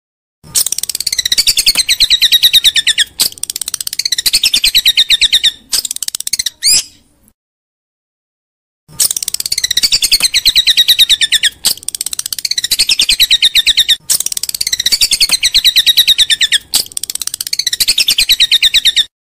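Recorded songbird song played as masteran tutor audio for training a white-rumped shama: loud, very fast rattling trills of falling notes in bursts of a second or two, with a clean pause of about two seconds near the middle.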